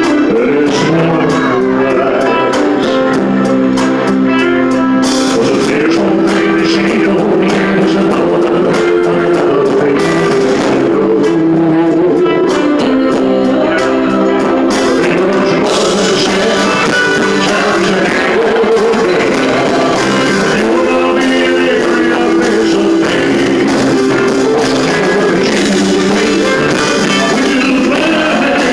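Live rock-and-roll band playing loudly, with guitar and drums, and a singer's voice at times. The cymbals grow fuller about halfway through.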